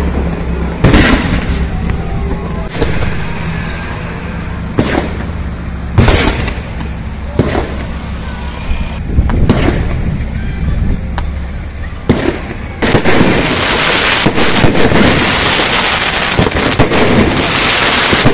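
An outdoor fireworks display: a string of sharp bangs at uneven intervals, a second or two apart, some in quick pairs. About two-thirds of the way through a steady rushing noise sets in and stays, with more bangs inside it.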